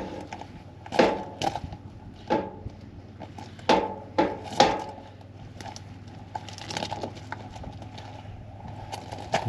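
Garden hose being uncoiled by hand: irregular knocks, clatters and rustles as the hose and its spray nozzle are handled, over a steady low hum.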